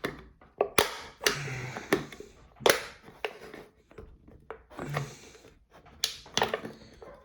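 Multitool can-opener blade clicking, knocking and scraping against the rim of a can in short irregular strokes as it is worked around the lid, not getting a good grip on the lip.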